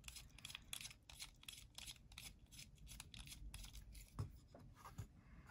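Small screwdriver clicking and scraping against the pocket-clip screws of a folding knife as they are turned, faint and about five clicks a second, with a single knock about four seconds in.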